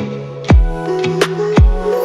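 Electronic background music with a steady beat: deep kick drums and sharp snare hits over held synth notes.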